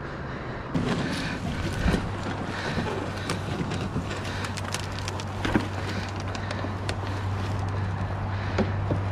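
Scattered knocks, clicks and scrapes of plastic kayak hulls, paddles and gear being handled and pushed into the water, over a steady low hum.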